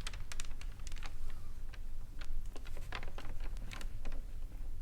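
Irregular clicks, taps and light rustles of plastic model-kit parts and packaging being handled, over a steady low hum.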